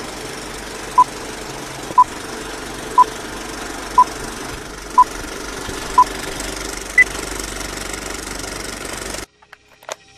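Old-film countdown leader: a steady film-projector clatter with a short beep every second, seven in all, the last one higher. The sound cuts off suddenly about nine seconds in, leaving a few faint clicks.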